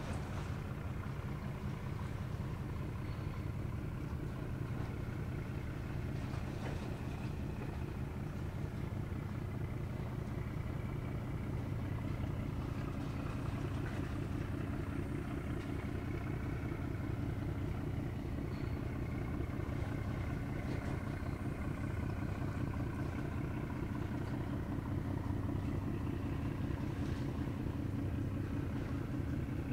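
A ship's engine running steadily across the water: a low throbbing drone that holds the same pitch and level throughout.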